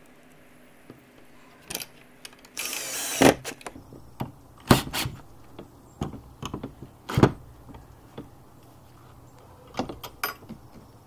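A Ryobi cordless drill/driver runs in one short burst of under a second, driving a screw into a steel gate latch, about a quarter of the way in. It is followed by sharp metallic clicks and knocks of the hardware and the drill bit being handled, and near the end a few clicks as the gate latch is worked by hand.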